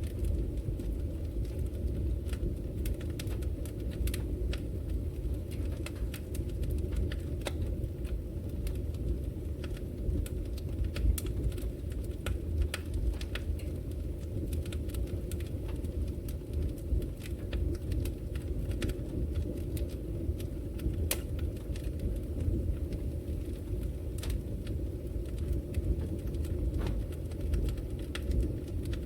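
Wood fire burning in a fireplace, with frequent sharp crackles and pops at irregular intervals over a steady low rumble.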